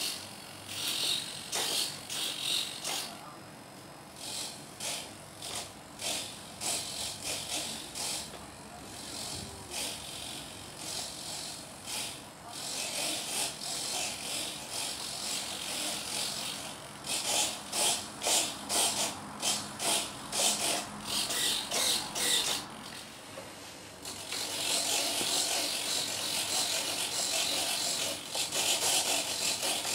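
Radio-control servos in a model jet moving the control surfaces back and forth in a string of short whirs, at times about two a second. Near the end the thrust-vectoring nozzle's servos whir almost without a break.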